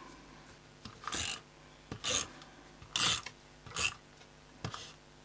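Tape runner drawn in short strokes across the back of patterned card paper, laying adhesive: about five brief scratchy rasps, roughly one a second.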